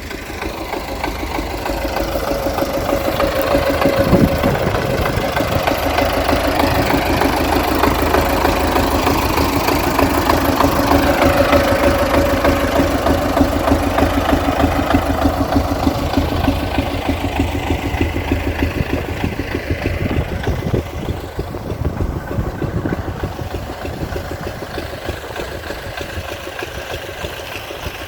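Tractor engine running steadily. It grows louder over the first few seconds and fades slowly through the second half.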